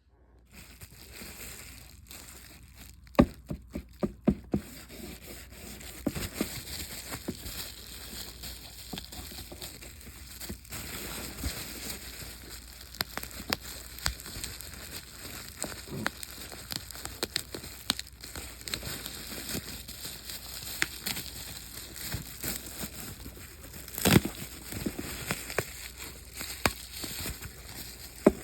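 Packaging and parts of a toy train set being handled during unboxing: crinkling and rustling, with scattered sharp clicks and knocks. A cluster of knocks comes about three to four seconds in and a single loud one comes near the end.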